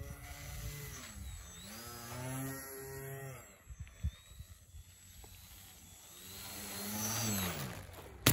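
Cattle mooing: three long, low moos, the last one falling in pitch at its end.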